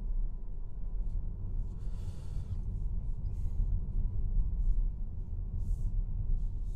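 Low, steady road and tyre rumble inside the cabin of a Mazda MX-30 electric car driving on city streets, with no engine running, and a few short, soft hisses.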